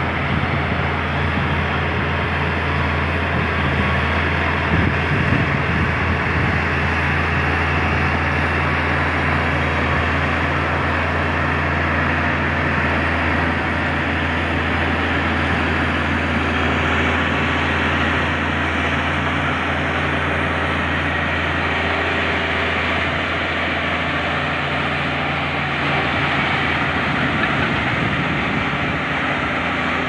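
LiuGong B160C crawler bulldozer's diesel engine running under load in a steady low drone as the dozer pushes earth with its blade.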